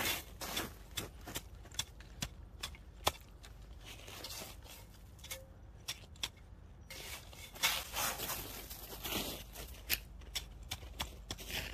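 Folding spade scraping and scooping powdery snow: a string of irregular crunches and scrapes, sparser for a few seconds about halfway through.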